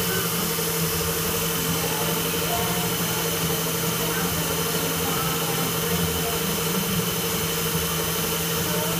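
Tool post grinder with a GMN spindle running on a lathe, its wheel grinding a spinning steel W20 collet holder. The sound is steady, a hum and a high whine over an even grinding hiss.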